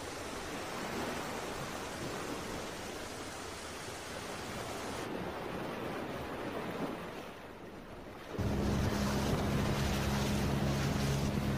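Water rushing along a small fishing boat's hull, with wind. About eight seconds in, the steady drone of the boat's motor starts suddenly and becomes the loudest sound.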